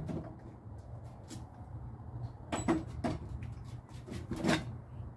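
Three sharp knocks of tools on a stripped-down engine block, two close together just past halfway and one near the end, over a low steady hum.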